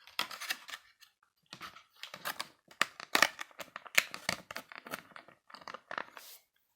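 Packaging of a boxed collectible figure being opened by hand: a run of rustling, scraping and tearing noises with sharp clicks, in bursts separated by short pauses.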